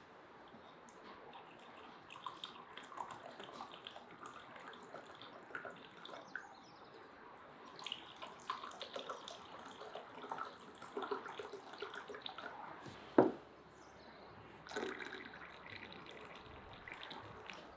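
Water splashing and dripping with many small irregular clicks, and one sharp knock about thirteen seconds in.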